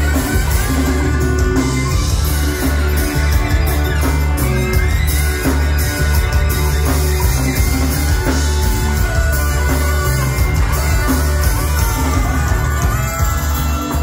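Live rock band playing loud through a club PA: electric guitars, keyboards and drums over a heavy bass, with a saxophone.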